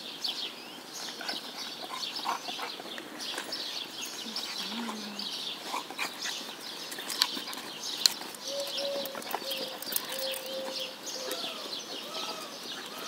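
Many small birds chirping continuously in a dense chorus of short high calls, with two sharp clicks about seven and eight seconds in.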